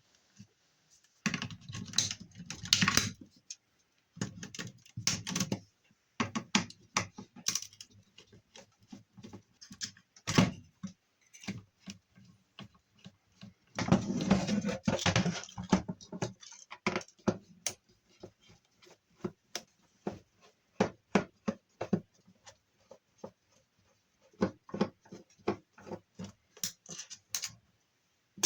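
Hand disassembly of an electronic unit: irregular clicks and clinks of tools and small metal parts, with two longer stretches of scraping and rubbing, one near the start and one about halfway.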